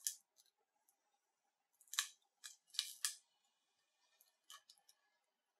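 Sharp cracking snaps as a plastic pry tool works the cracked display assembly of a Nokia Lumia 930 loose from its frame. The snaps are the adhesive and the broken glass giving way. The loudest come about two seconds in and in a quick run of three just after.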